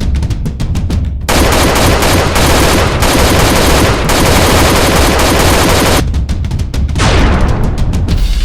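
Automatic gunfire sound effects: a rapid burst of shots, then several seconds of dense, unbroken blasting noise, then another rapid burst and a blast that dies away near the end.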